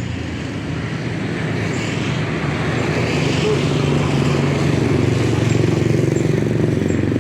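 A vehicle engine running steadily, slowly growing louder.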